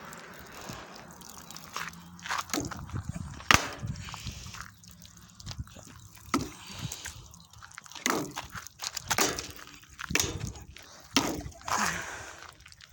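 Knife stabbing into a plastic water jug: a series of short sharp knocks and scrapes, the loudest about a third of the way in and several more near the end, with water dripping and sloshing.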